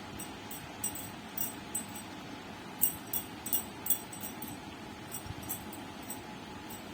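Irregular short, very high-pitched ticks, bunched together about three to four seconds in, over a steady background hum.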